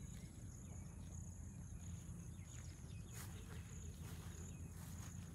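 Faint rural outdoor ambience: a steady high-pitched insect drone over a low rumble, with a few faint clicks and chirps about three seconds in.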